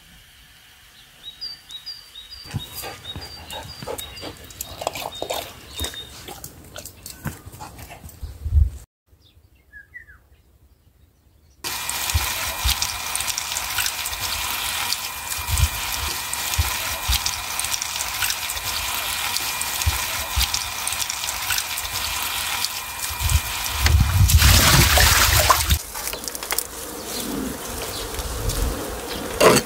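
Tap water pouring steadily onto wild onion leaves in a plastic colander as they are rinsed, swelling louder for a couple of seconds near the end. Before that, soft snapping and rustling as the onion stems are trimmed by hand.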